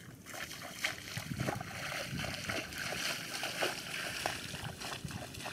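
Footsteps splashing and sloshing through shallow water over grass, a quick, irregular run of splashes that grows louder after about a second.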